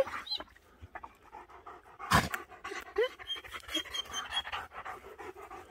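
German shepherd panting fast and rhythmically, with one short louder pitched sound about two seconds in.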